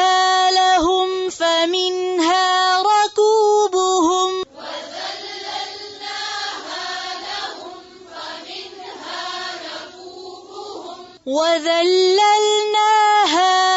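A woman reciting the Quran in Arabic in a melodic tajweed style, with long held, ornamented notes. From about four and a half to eleven seconds in, the voice turns softer and rougher before the strong held notes return.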